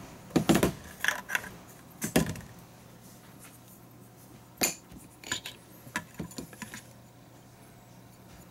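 A triangular scale ruler and its clear plastic tube case being handled on a table, clattering and knocking. There are several sharp knocks in the first two seconds, one sharp click a little past halfway, then lighter taps.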